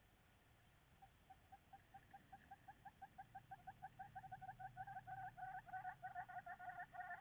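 A bird calling a rapid series of short repeated notes, starting about a second in, then quickening and growing louder.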